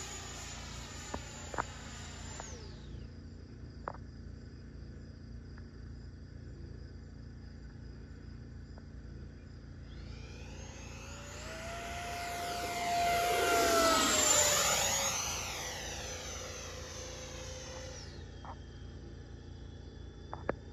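Electric ducted fan of an 80mm FMS F-86 Sabre RC jet whining overhead. It fades away within the first couple of seconds, then comes back in a flyby that swells to its loudest about two-thirds of the way through. Its pitch drops as it passes, and it fades out again.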